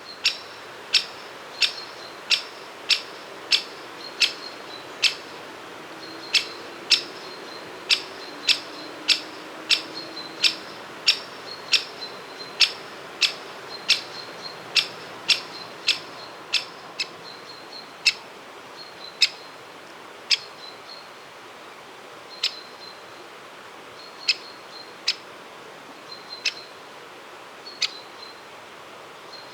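Great spotted woodpecker giving its sharp, short 'kick' call over and over, about one and a half calls a second at first, then slowing to about one a second or less in the second half.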